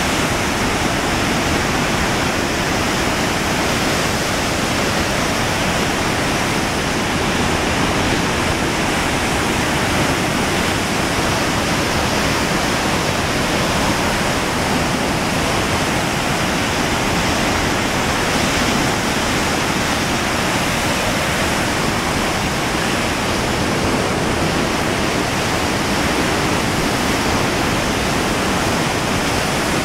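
A creek in flood after heavy rain: muddy floodwater rushing and churning over the remains of a breached dam in a loud, steady wash of whitewater.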